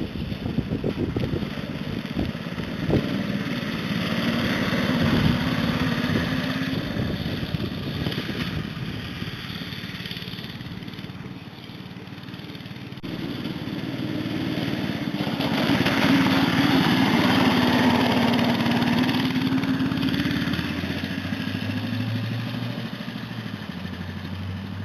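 Small engine of a homemade off-road go-kart running as the kart is driven around. Its pitch rises and falls with the throttle, and it grows louder and fainter twice as the kart comes nearer and moves away.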